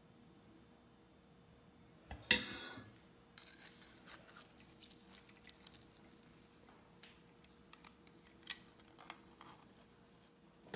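Stainless-steel potato ricer being loaded and squeezed over a steel bowl: a loud metal clank about two seconds in, then soft scraping and light metallic clicks of the hinged handles, with a couple of sharper clicks near the end.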